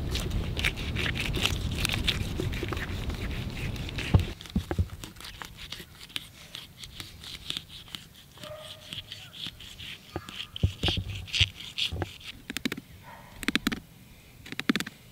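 A fillet knife cuts and scrapes through the scales, skin and rib bones of a buffalo fish on a wooden board, giving scattered crunching and scraping clicks. For about the first four seconds a steady low rumble of wind on the microphone lies over it, then it cuts off suddenly.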